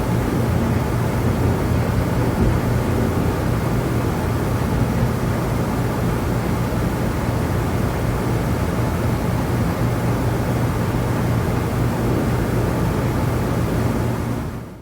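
Steady low droning rumble of a large engine or vehicle, an even noise with a strong low hum, fading out at the end.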